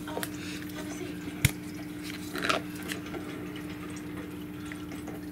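Aquarium filter running with a steady hum and a faint trickle of water. A single sharp click about a second and a half in, with a brief rustle a second later, from handling the fish-food container at the tank.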